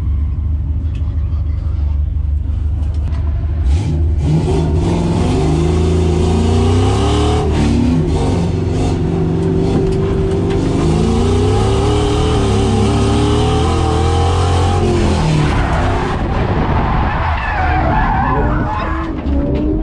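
SN95 Ford Mustang drift car heard from inside the cabin: the engine runs low and steady at first, then from about four seconds in revs hard with its pitch rising and falling while the tyres skid. About sixteen seconds in the engine note drops away, leaving uneven tyre and car noise.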